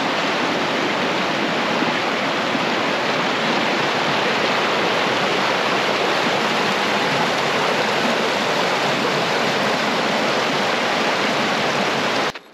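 Rushing water of a snowmelt-fed mountain brook: a steady, loud rush that cuts off abruptly near the end.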